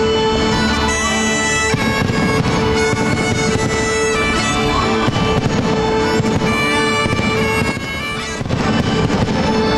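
Bagpipe music: steady drones held under a chanter melody, briefly dipping in level near the end.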